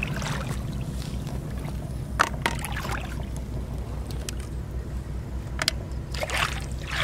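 Rubber boots wading and sloshing through shallow water, with a few sharp clicks around the middle, over a steady low rumble.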